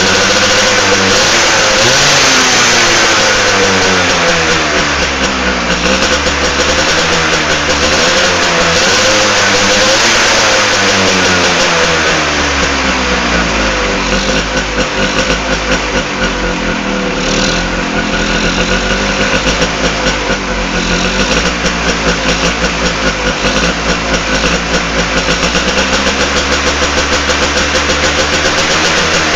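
Tuned two-stroke motorcycle engine on a Suzuki RC100 block bored oversize, with a Satria carburettor and double-petal RXZ reed valve, being revved in repeated rising and falling blips. In the second half it settles into a pulsing, uneven idle.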